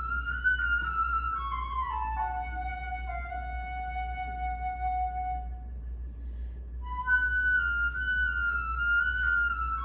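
Solo flute playing a slow melody: a phrase steps down to a long held low note, breaks off for about a second, then a new phrase enters high and drifts slowly downward. A steady low hum sits underneath.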